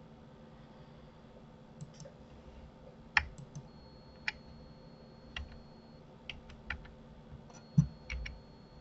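Computer keyboard keys and mouse buttons clicking, about a dozen short, irregular clicks over a faint steady hum, with the loudest click about eight seconds in.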